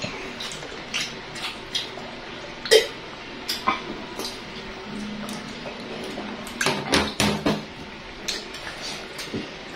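Drinking glass and plastic water pitcher being handled, clinking and knocking, with gulps of water being drunk. A sharp knock comes about three seconds in, and a quick run of knocks follows near seven seconds as the vessels are set down on the table.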